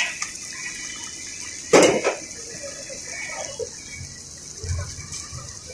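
Whole fish sizzling in oil on a large flat griddle, a steady high hiss, with a loud metal knock about two seconds in and a few lighter clicks.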